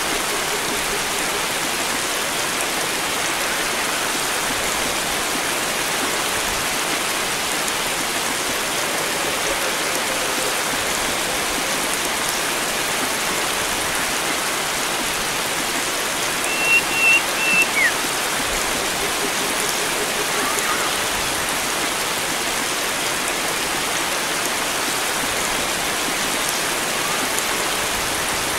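Steady rush of flowing water. About two-thirds of the way through, a bird calls briefly: three short high notes and then a quick falling note. A fainter call follows a few seconds later.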